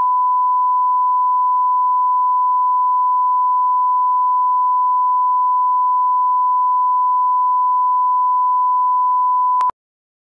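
Broadcast line-up test tone, a steady 1 kHz sine tone of the kind played with colour bars, held at one pitch. It cuts off suddenly near the end.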